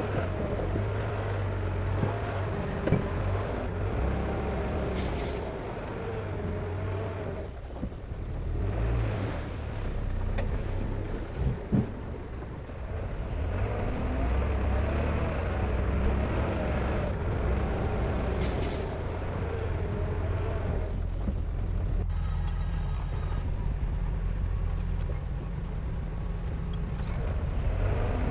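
Heavy earthmoving machine's diesel engine running under work, its level dipping and rising a couple of times, with a few short knocks.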